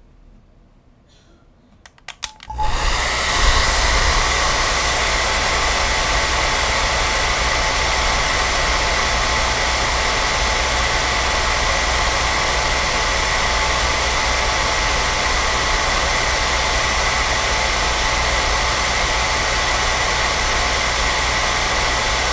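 Hair dryer switched on about two and a half seconds in, after a few clicks, then running steadily at one speed: an even rush of air with a constant whine over it.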